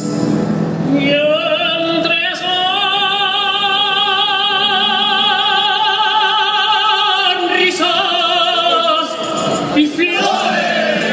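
A man singing solo in a Spanish tuna. He glides up into one long note about a second in and holds it with vibrato for about six seconds, then carries on with shorter phrases, with the group's guitars and bandurrias accompanying.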